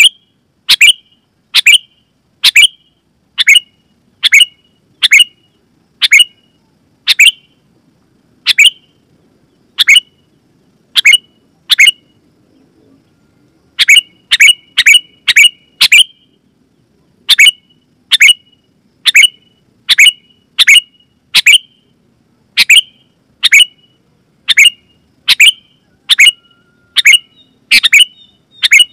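Sooty-headed bulbul calling: loud, short, sharp chirps repeated about once a second, pausing for about two seconds midway, then coming faster, closer to two a second.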